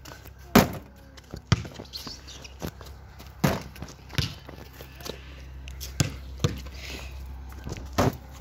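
A basketball bouncing and thudding on pavement: about seven sharp, irregularly spaced thuds.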